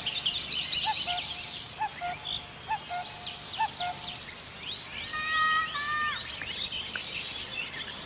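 Woodland birdsong: many birds chirping together, with a run of short, low, repeated notes in the first half. About five seconds in, a louder call holds its pitch and then drops.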